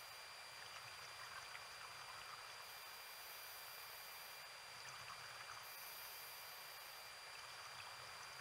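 Very faint steady hiss with two thin, steady high tones and scattered faint crackles: the underwater camera's own recording noise, with no distinct sound event.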